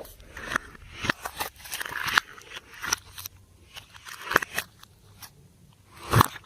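Slime being squeezed and stretched by hand, making irregular wet clicks and pops as air pockets burst, several a second, with the loudest pop near the end.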